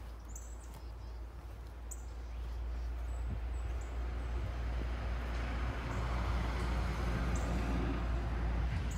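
Outdoor rushing noise that grows louder from about three seconds in, over a constant low rumble, with faint bird chirps now and then.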